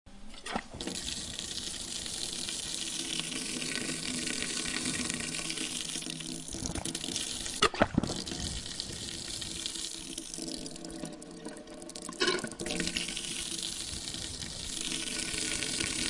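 Water running steadily from a faucet, broken by a few sharp knocks, the loudest pair about eight seconds in and another about twelve seconds in.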